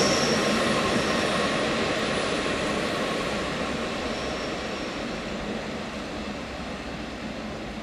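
Rhaetian Railway panorama-car train running away around a curve, its wheels rumbling on the rails and the sound fading steadily as it recedes.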